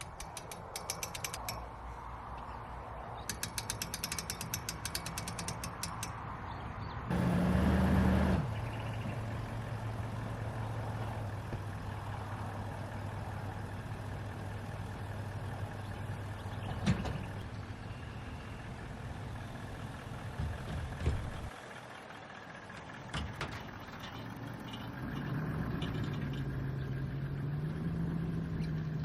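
Fast mechanical ratchet-like clicking in two runs, then a loud start about seven seconds in, after which a machine runs with a steady low hum that steps up in pitch near the end.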